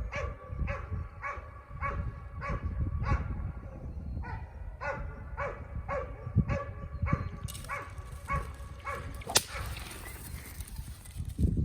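A dog barking over and over, about two to three barks a second, stopping about seven seconds in. A steady hiss follows, with one sharp crack shortly before the end.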